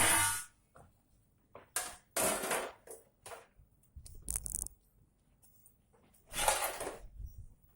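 Intermittent scraping and rustling, three longer bursts with a few short clicks in between, from tools and parts being handled on an electronics workbench during an amplifier repair.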